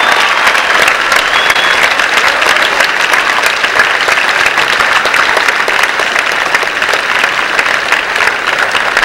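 Theater audience applauding steadily, a dense, even clapping.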